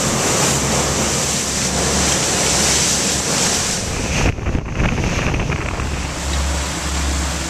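Fishing boat running under power: a loud rush of wake and spray with wind buffeting the microphone over a low engine drone. About four seconds in the rush briefly drops away, and a steadier low engine hum with less hiss follows.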